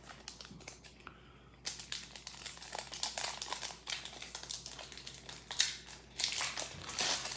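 Foil wrapper of a Pokémon trading card booster pack crinkling in irregular bursts as it is handled and torn open, starting after a quiet second or so and louder near the end.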